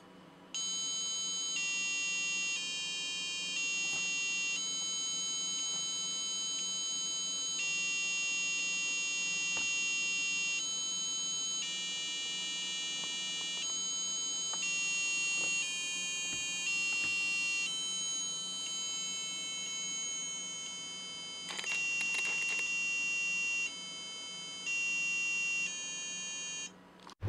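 mBot educational robot's onboard buzzer playing a programmed tune: a string of electronic beep tones, each note held about a second before stepping up or down to the next, cutting off just before the end.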